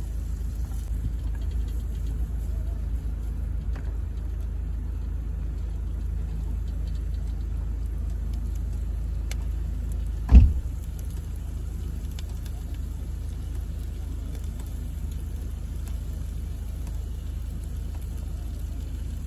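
A steady low rumble, with one sharp, loud thump about ten seconds in.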